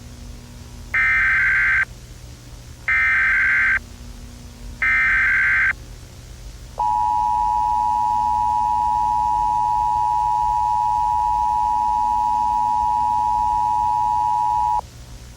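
Emergency Alert System tones. Three short bursts of SAME digital header data come about a second apart. About a second after the last burst, the two-tone attention signal starts and holds steady for about eight seconds, then cuts off.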